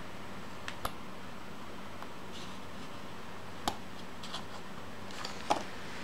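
A handful of short, light clicks and taps from small tools and paper being handled on a desk, the loudest near the end, over a faint steady hum.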